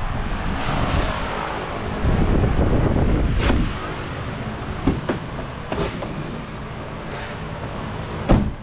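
Doors of a Hummer H2 being handled: a few sharp latch clicks and knocks, the loudest near the end, over low rumbling handling noise on the microphone.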